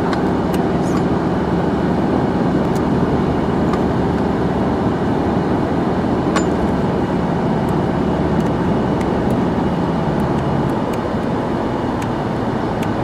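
A car driving at a steady speed: a continuous rush of engine and road noise with a low steady hum, and a few faint clicks.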